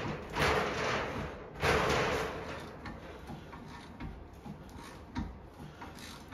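Threaded bearing press tool being wound in by hand, pressing a new rear wheel bearing into a VW Transporter hub. Two long rasping strokes in the first three seconds, then faint scattered ticks and knocks.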